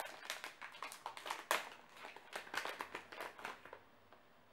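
Blind-box toy packaging being handled: a quick, irregular run of cardboard and plastic-wrapper crinkles and taps, the loudest about one and a half seconds in, stopping about three and a half seconds in.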